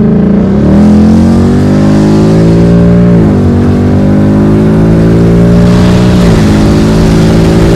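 2020 Ford Mustang GT's 5.0-litre Coyote V8 through a Pypes aftermarket exhaust, heard from inside the cabin under hard acceleration. The engine note holds high and climbs, then drops sharply twice, about three and six seconds in, as the 10R80 ten-speed automatic upshifts.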